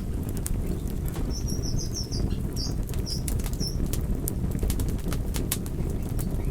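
Campfire burning, with a steady low rumble of flames and frequent sharp crackles and pops from the burning wood. A quick series of short high chirps sounds from about a second and a half in to near the middle.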